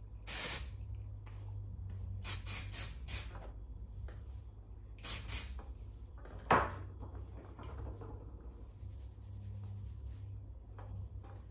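Aerosol dry shampoo sprayed into hair in several short hissing bursts, with quieter rubbing of a brush and fingers through the hair between them. A sharp tap about six and a half seconds in is the loudest sound.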